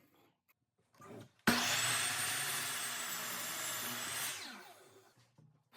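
Electric power tool switched on about a second and a half in: its motor spins up with a rising whine, runs steadily for about three seconds, then winds down after it is switched off.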